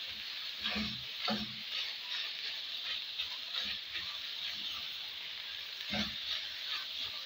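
Onions frying in a pan with a steady sizzle, while a spoon stirs them. A few stirring strokes scrape and knock against the pan, about a second in and again near the end.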